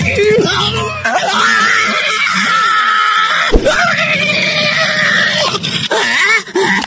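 A cartoon man's long, strained scream as he breathes fire after a burning-hot mouthful, broken by one sharp thump about three and a half seconds in.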